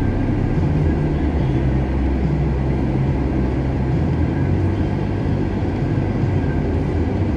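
Car engine idling, heard from inside the cabin while the car is stopped: a steady low hum.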